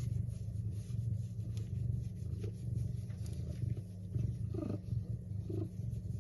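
A domestic cat purring, a continuous low rumble that pulses in level.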